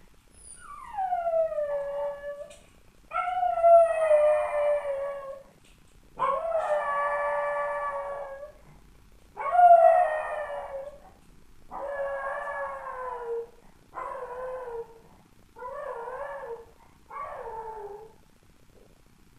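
A dog left home alone howling: eight long drawn-out howls in a row, each sliding down in pitch, the later ones shorter and quieter.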